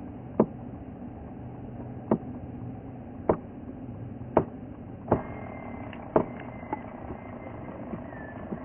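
Steady low engine hum, broken by a series of sharp knocks at uneven intervals, about seven in all, which are the loudest sounds. A faint high whistle comes in about halfway through.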